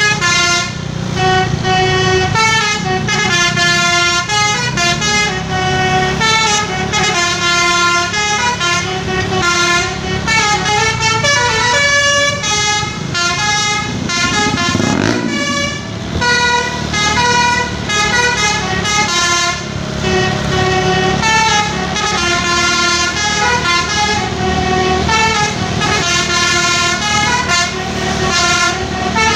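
A bus's basuri musical horn playing a tune in stepped notes, over the low running of the bus engine, with a brief rising-and-falling sweep about halfway through.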